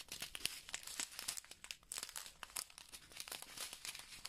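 Small clear plastic zip-lock bags of round diamond-painting drills crinkling as they are handled and shuffled: an irregular run of soft crackles.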